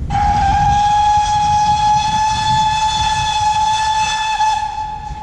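Steam whistle of GWR 2-8-0T tank engine 5239 'Goliath' giving one long steady blast, held about four and a half seconds before dropping away, over a low rumble.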